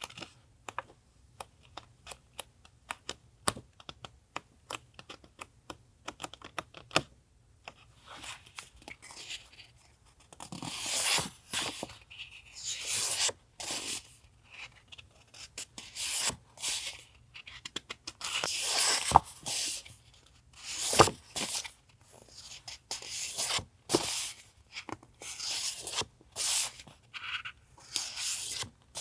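Paper and packaging handled close to the microphone: a run of small sharp clicks and taps, then from about ten seconds in, repeated bursts of rustling and tearing paper.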